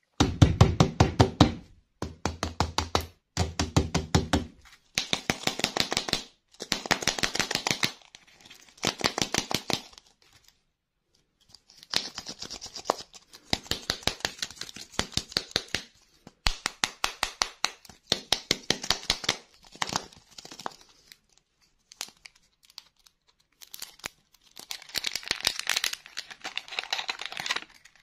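Hands tapping and crinkling the printed wrapper of a plastic surprise-egg lollipop and peeling it off, in bursts of quick clicks and rustles a second or two long, with short pauses between them.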